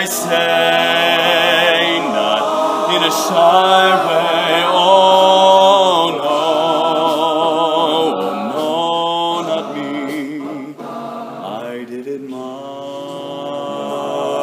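Male a cappella group singing: a male solo voice with vibrato over the group's sustained vocal chords. It eases off about ten seconds in, then the chords swell again near the end.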